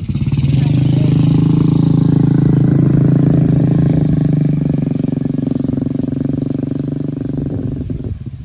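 A motor vehicle engine running steadily at one constant pitch, loud at first, easing over the last few seconds and dropping off about eight seconds in.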